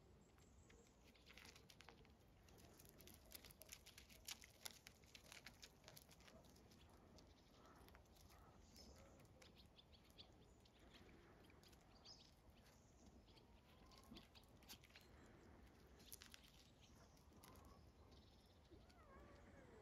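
Near silence: faint scattered ticks and crunches of small paws scuffling on gravel, denser in the first few seconds and again near the middle, with faint bird chirps behind.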